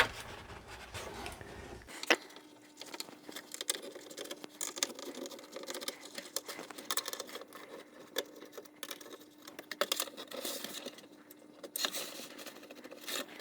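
Light clicks, taps and small metallic rattles of tools and loose metal parts being handled while opening up a Commodore 64 to get under its shield. A faint steady hum comes in about two seconds in.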